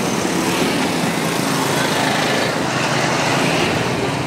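Small motorcycle engines of motorbike-drawn tuk-tuks running, with passing street traffic, making a steady noise.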